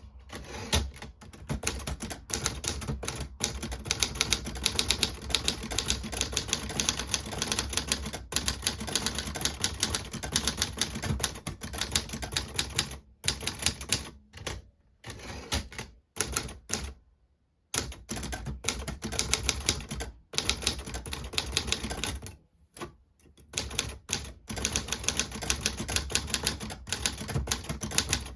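1957 Halda portable typewriter being typed on at a fast, steady pace: a dense run of sharp keystroke clacks, broken by a few short pauses, the longest about two-thirds of the way through.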